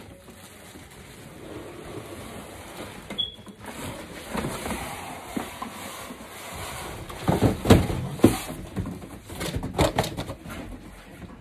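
Cardboard box and plastic wrapping rustling and scraping as a baby car seat is hauled out of its shipping box, with a cluster of louder knocks and bumps about two-thirds of the way through and a few more near the end.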